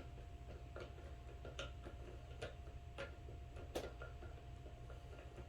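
Torque driver clicking as the optic's small mounting screws are tightened down: sharp clicks at uneven spacing, over a faint steady hum.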